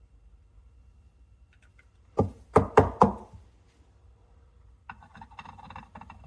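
Four sharp knocks in quick succession, like a hard object rapped on a countertop. Softer, irregular clinking and clatter follow near the end.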